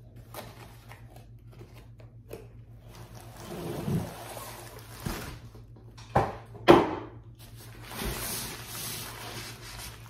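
Cardboard box being opened and its contents handled: scattered scrapes and rustles, with two sharp scrapes a little past the middle and a longer hissy rustle near the end.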